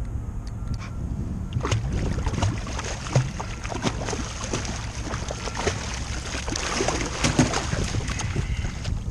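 Water splashing and knocking against a kayak, a busy run of sharp irregular splashes and bumps starting about a second and a half in, over steady wind rumble on the microphone: a hooked cobia being brought alongside and landed.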